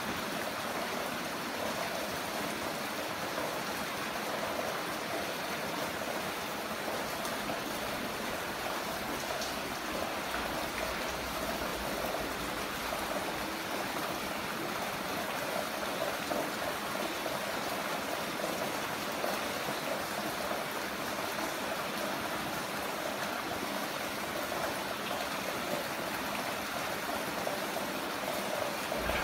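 Heavy rain falling in a steady, even rush, with no breaks or single drops standing out.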